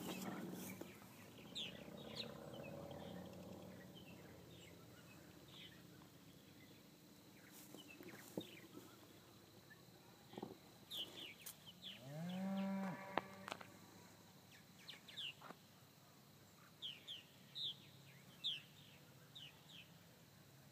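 Purple martins calling: scattered short, high, falling chirps throughout. About twelve seconds in, a louder low call rises and then holds for about a second, like a cow's moo.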